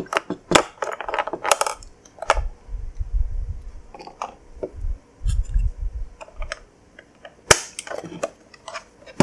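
AA batteries clicking and rattling as they are pulled out of a plastic landline telephone's battery compartment, with the phone base knocking on a wooden desk, then a sharp snap about seven and a half seconds in as the battery cover is pressed back on.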